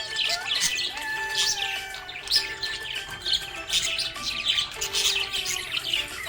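Budgerigars chirping in quick, dense short calls over background music with held notes.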